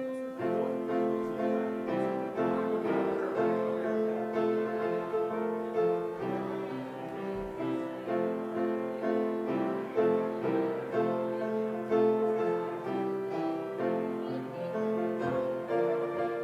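Piano playing a continuous instrumental passage of held chords and changing notes.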